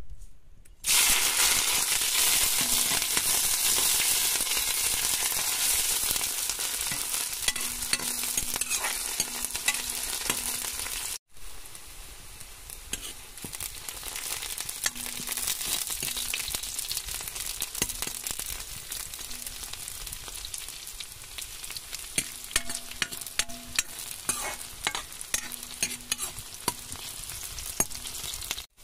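Sliced onions dropped into hot oil in a steel kadai, sizzling loudly at once, then stir-fried with a metal ladle that scrapes and clicks against the pan. The sound drops out briefly about a third of the way through, and the sizzle then goes on a little quieter.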